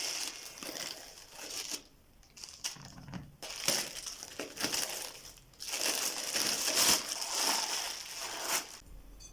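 Packaging crinkling and rustling as it is handled and unwrapped, in uneven bursts with brief pauses about two and three seconds in.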